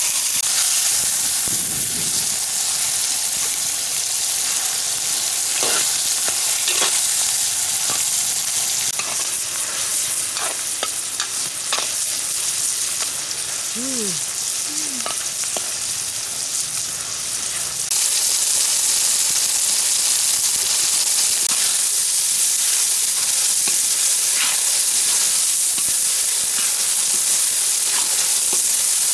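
Sliced tomatoes and onions sizzling in oil in a large steel wok over a wood fire, with a steady hiss. A metal ladle scrapes and clinks against the pan now and then as they are stirred.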